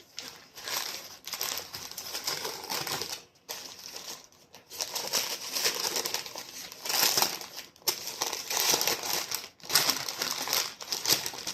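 Sandwich wrapping crinkling and rustling as it is pulled open by hand, an irregular crackle broken by a few brief pauses.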